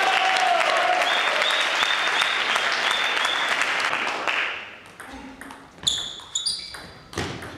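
Spectators clapping for a point just won, lasting about four seconds before fading out. Then a few sharp clicks of a table tennis ball off the bats and table as the next rally starts.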